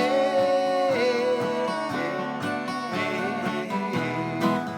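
Acoustic guitar strumming a country-folk accompaniment between sung lines, with a held note ringing in the first second.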